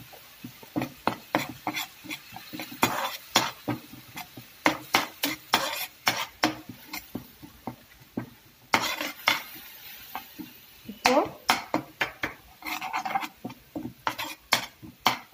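Metal spoon stirring and scraping a thick paste of ground ginger, garlic and green chilli around a metal frying pan, with rapid clinks and scrapes against the pan and a sizzle underneath. The paste is being sautéed until its raw smell goes.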